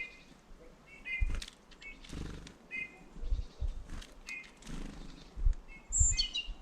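Small birds at a feeder giving short, repeated chirping calls about once a second, with a higher call sliding down in pitch near the end, over scattered low knocks and thumps.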